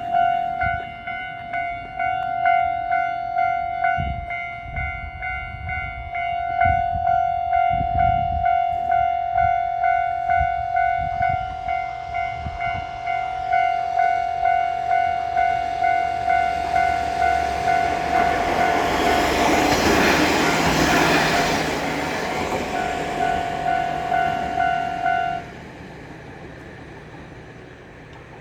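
Japanese level-crossing alarm ringing its repeated electronic clang while a diesel railcar passes over the crossing, the train's rumble swelling to its loudest about two-thirds of the way through. The alarm cuts off suddenly near the end as the crossing clears, leaving the train fading away.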